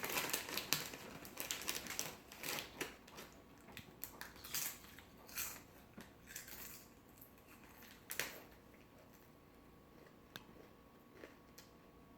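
A Lay's potato chip bag crinkling and chips being crunched: a run of short, irregular crackles through the first eight seconds, then only a few faint clicks.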